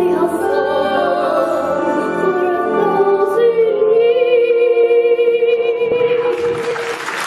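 A young ventriloquist singing in her rabbit puppet's voice, ending on one long held note. The audience breaks into applause about six seconds in.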